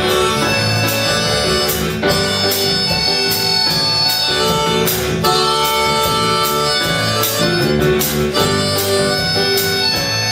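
Harmonica played into a microphone, carrying the melody of a song's intro over the band's accompaniment.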